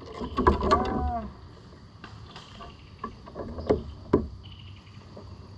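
Clicks and knocks of a small largemouth-type bass being landed and handled in a kayak, with two sharp knocks about four seconds in. A short wordless voice call sounds in the first second.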